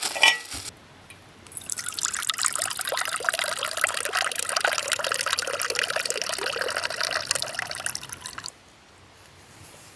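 Water pouring and trickling, starting about a second and a half in, running for about seven seconds and stopping suddenly.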